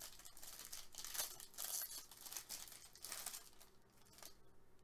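Foil trading-card pack wrapper being torn open and crinkled by hand: a run of short crackling rustles that thin out near the end.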